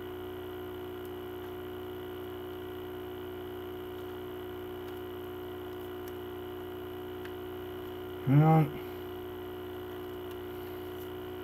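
Steady electrical mains hum made of several fixed tones, with a short voiced grunt a little past eight seconds in.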